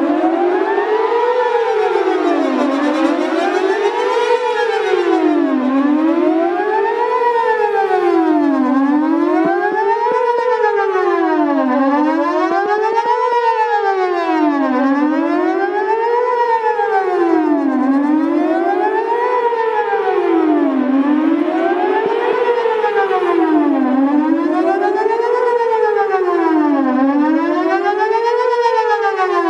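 Whelen WPS-4008 electronic outdoor warning siren sounding its "Best Possible Protection" tone for a monthly test: a loud pitch that glides steadily up and then down, repeating about once every three seconds.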